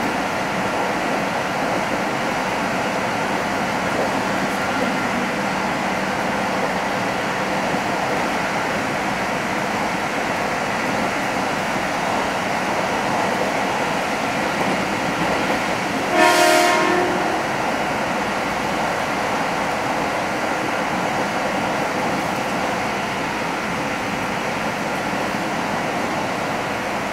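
Steady running noise of a passenger train heard from inside a coach, with one short, pitched train horn blast about sixteen seconds in.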